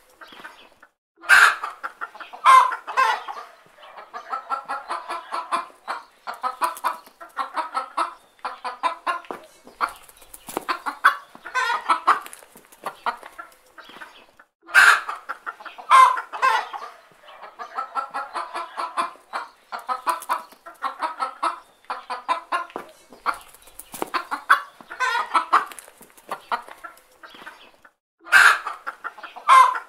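Chickens clucking: a steady stream of short clucks, broken every so often by louder, sharper calls.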